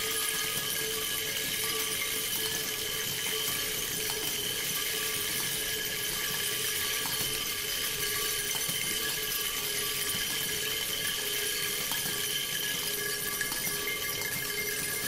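A small cymbal and a cluster of small brass objects held against a spinning percussion table, giving a steady metallic sound: several sustained ringing tones over a dense scraping hiss, with a few faint ticks.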